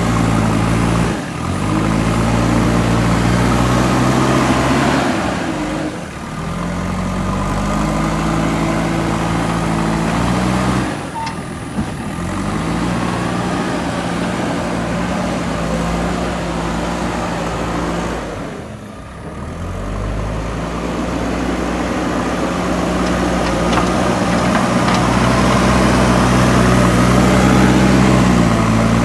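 JCB 3DX backhoe loader's diesel engine running steadily under working load, its pitch shifting from section to section, with a few short dips in level.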